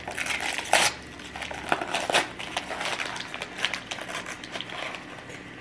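Gift-wrapping paper crinkling and tearing as a present is unwrapped, in irregular crackles with sharper rips about a second in and again around two seconds.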